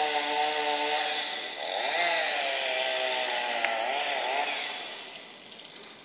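A small engine running at a steady pitch, then rising and falling in pitch from about two seconds in, and fading away near the end.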